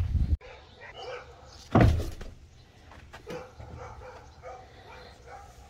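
A dog barks once, loudly, a little under two seconds in, followed by a few faint short whines or yips.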